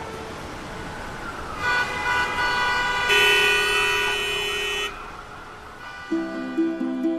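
City street traffic with car horns honking, one held for nearly two seconds, and a siren's wavering tone. About six seconds in, light plucked-string music begins.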